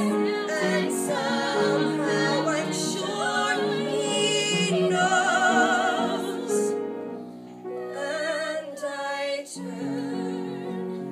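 Young women singing together on stage with strong vibrato, a musical-theatre number with instrumental accompaniment. The voices drop out about two-thirds of the way through, come back for a short phrase and then leave the accompaniment on its own.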